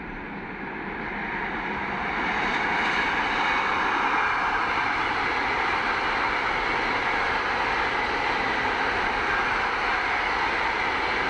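Suburban electric multiple unit passing on the line, a steady rushing noise of wheels on rail that swells over the first few seconds and then holds loud as the cars go by.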